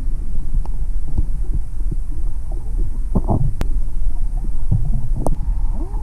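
Muffled underwater rumble through a camera's waterproof housing, with scattered small knocks and clicks, a louder short burst about three seconds in and a sharp click just after it.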